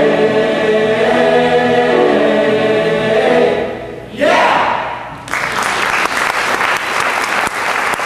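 A mixed choir holds a final chord in harmony, which dies away about four seconds in; after a brief loud burst, the audience breaks into applause about five seconds in.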